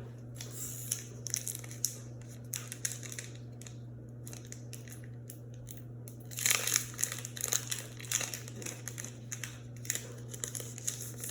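Foil wrapper of a Pokémon trading card booster pack crinkling and tearing as it is opened, in irregular rustles with a louder flurry of crinkling about six and a half seconds in.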